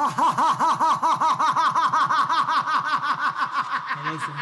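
A person laughing in a rapid, even cackle, about seven 'ha's a second, slowly fading toward the end.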